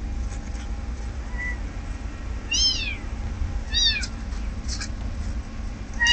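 A very young kitten mewing: several short, high-pitched mews, each rising then falling, about a second apart. Two brief scratchy noises come between them.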